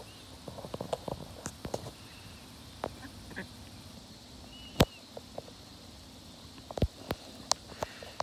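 A small flock of domestic ducks pecking and dabbling at feed on the ground: irregular short bill clicks and snaps, the sharpest a little under five seconds in, with a couple of faint short high calls.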